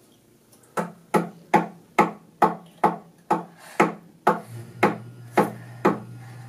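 A round wooden mallet striking the plastic handle of a screwdriver-like tool held against a pine block in a wooden vise. It lands about a dozen sharp, even blows, roughly two a second.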